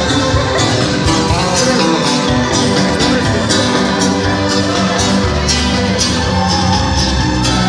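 Live band music played loud: drums, guitar and keyboard with a steady beat, and a singing voice.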